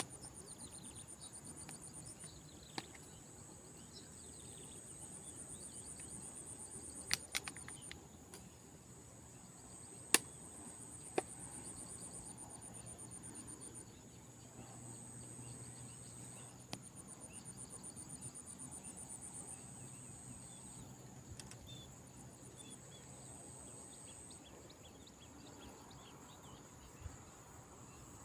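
Insects chirring steadily, with high, rapid cricket-like trills that come and go, and a few sharp clicks about a third of the way in.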